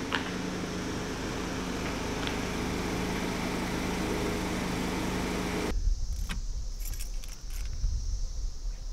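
Car engine running with a steady hum as a Chevrolet SUV rolls up to the shop. About six seconds in it gives way to a low rumble, heard from inside the car, with a few light metallic clicks and jingles.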